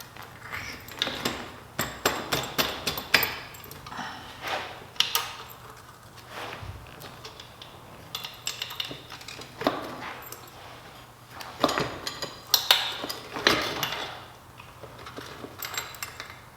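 Metal parts and tools clinking and knocking at irregular intervals as a dirt bike's rear wheel, axle and chain adjusters are fitted, with a cluster of sharper knocks about three quarters of the way through.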